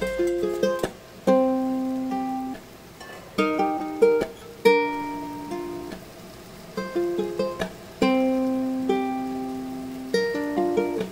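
Background music of plucked string notes in short picked phrases, each note ringing and fading.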